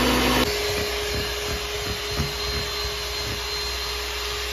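An electric mixer-grinder blending mango and milk stops abruptly about half a second in, and an electric hand mixer takes over, beating cream in a plastic bowl with a steady motor tone.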